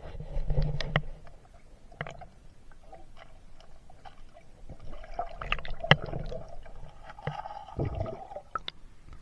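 Muffled water gurgling and sloshing with scattered sharp clicks and knocks, loudest in the first second and again about five to eight seconds in.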